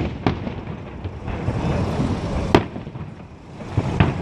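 Fireworks salute: sharp bangs of shells bursting overhead, one just after the start, the loudest about two and a half seconds in and another near the end, with rumble and crackle between them.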